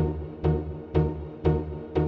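Background music with a steady beat, about two beats a second, over a sustained low bass line.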